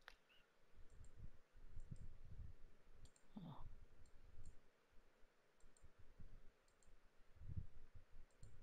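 Faint computer mouse clicks, mostly in quick pairs, scattered through the stretch, with soft low thuds in between.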